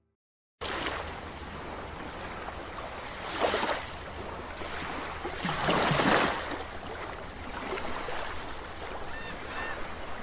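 Waves washing: a steady rushing noise that starts abruptly about half a second in and swells louder twice, about three and a half and six seconds in.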